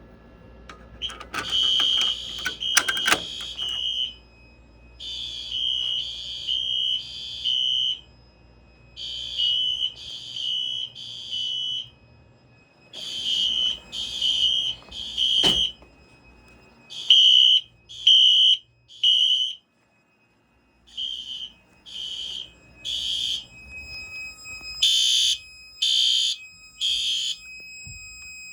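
Fire alarm horns sounding in a temporal-three evacuation pattern: three short, high-pitched blasts, then a pause, repeating about every four seconds. This is the alarm signal from a pulled Fire-Lite BG-12 pull station. A sharp knock cuts in about halfway through, and the horns sound louder and fuller near the end.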